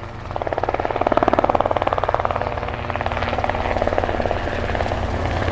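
Helicopter rotor blades chopping in a fast, steady beat over a low engine drone, swelling up over the first second.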